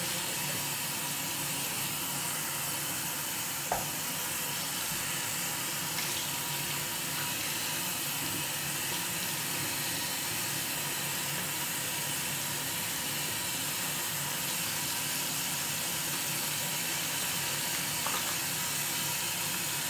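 Tap water running steadily into a sink while a bowl is washed out, with one light knock about four seconds in.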